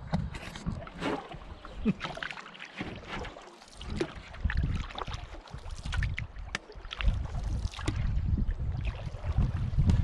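Canoe paddling: a wooden paddle dipping and pulling through the water in repeated strokes, with splashes, scattered knocks against the canoe, and low gusts of wind on the microphone. A sharp bump of handling right at the start.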